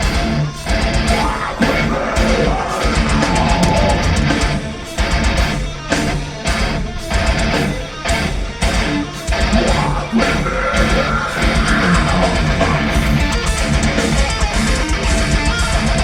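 Heavy metal band playing live, with distorted electric guitars and fast drums, heard in a loud audience recording.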